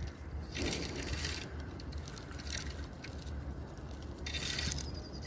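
A hooked bream splashing at the water's surface in several short bursts as it is drawn in on a float rod, over a steady low rumble.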